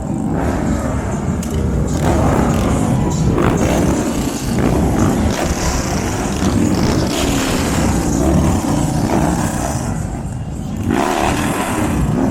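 Motorcycle engines running, a loud steady engine sound throughout.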